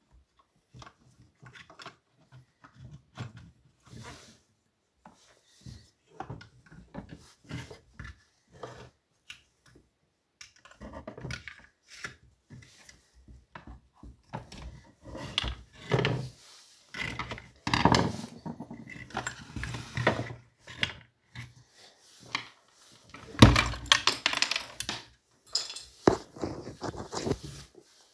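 Handling noise from a Partner 410 chainsaw's plastic housing and handle as it is gripped and turned over on a workbench: scattered clicks, knocks and scrapes, sparse at first, busier and louder in the second half, with a sharper knock a little before the end.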